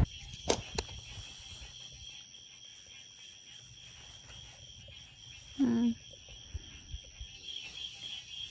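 Insects chirring steadily in two high, even tones. A few faint clicks come in the first second, and a short, louder call that falls in pitch sounds about halfway through.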